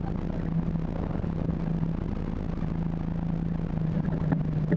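Steady drone of a distant motor engine: one constant low hum over a wash of noise, unchanging throughout.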